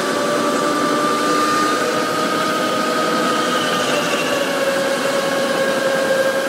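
Electric go-kart's motor whining steadily at speed over a rushing noise. Its pitch rises gently, then dips a little about four seconds in.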